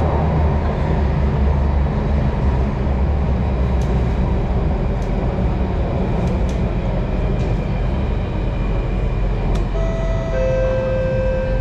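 Singapore MRT Circle Line train running, heard from inside the carriage: a steady low rumble with a few faint clicks. Near the end, several steady high tones come in.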